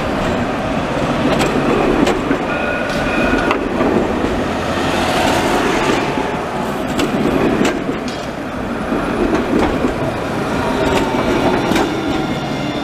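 Alstom Citadis 302 low-floor tram passing close by on street rails: a steady running noise with sharp wheel-on-rail clicks, and a few brief high whining tones.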